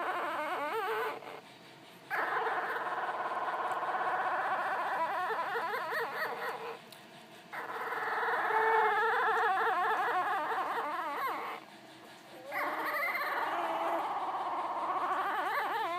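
A litter of Labrador Retriever puppies sleeping together, a chorus of many high, wavering whimpering snores overlapping in long stretches, broken by short lulls about every five seconds.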